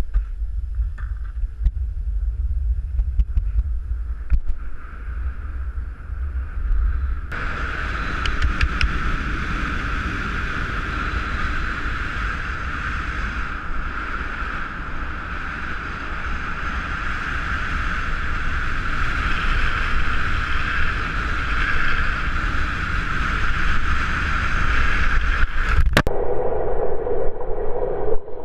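Skateboard wheels rolling fast on asphalt with wind buffeting the microphone: a heavy low rumble that grows into a louder, steady roar about seven seconds in. Near the end there is a sharp click, after which the sound turns duller.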